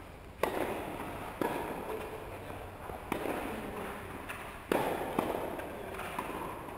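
Tennis rally: a tennis ball struck by rackets and bouncing on the court, a series of sharp pops about a second or a second and a half apart, each trailing into an echo.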